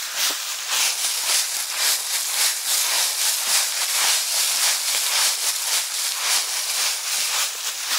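Footsteps crunching and rustling through a thick layer of dry fallen leaves at a steady walking pace, each step a crisp crackle.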